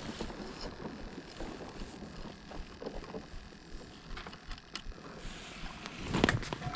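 Steady wind noise on the microphone with faint scattered clicks, and a short cluster of sharper knocks about six seconds in.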